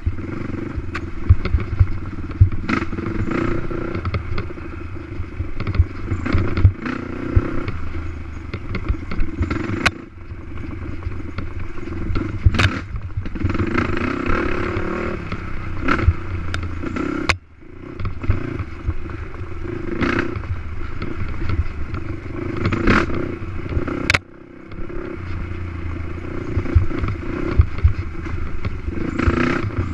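Racing ATV (quad) engine running hard and rising and falling with the throttle over a rough dirt course, with frequent knocks and rattles from the bumpy ride. Twice, near the two-thirds mark, the sound drops away abruptly for a moment.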